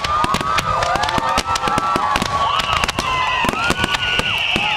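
Fireworks display: a rapid barrage of bangs and crackles with many whistling shells gliding up and down in pitch. A long high whistle starts about halfway through.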